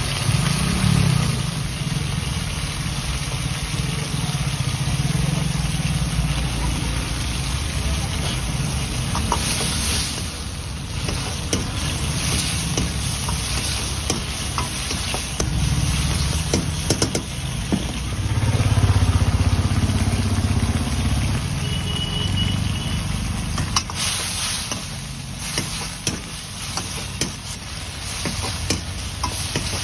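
Chilli chicken sauce bubbling and sizzling in a wok while a metal ladle stirs and scrapes against the pan, with clusters of clicks around ten, sixteen and twenty-five seconds in. A steady low rumble runs underneath.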